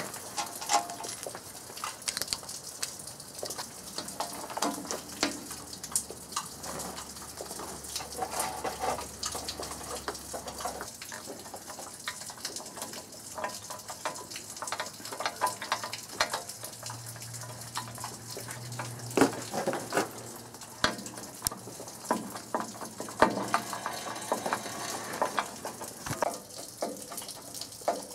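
Scattered clicks and light knocks of small hardware and tools being handled while an hour meter is fitted to a bandsaw sawmill's frame, over a steady hiss of rain.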